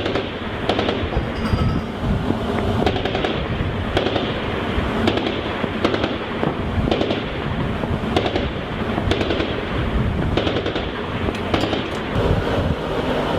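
Heavy gunfire: a string of sharp shots at irregular intervals, roughly one or two a second, over steady wind noise.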